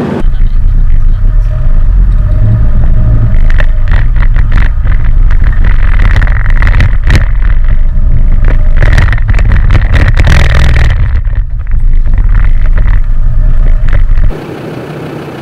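Land Rover Defender Td5 driving, heard loud from inside its cabin: a dense drone of the five-cylinder turbodiesel and the road, with many knocks and rattles on top. It cuts off suddenly near the end.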